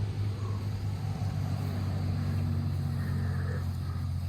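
Four-wheeler (ATV) engine running steadily nearby, a constant low drone that holds an even level.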